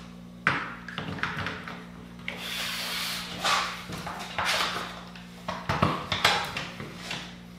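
One-handed bar clamps being handled and clamped onto the edge of a door panel: irregular clicks, knocks and a short scrape, with a quick run of clicks near the end as a clamp is squeezed tight. A steady low hum sits underneath.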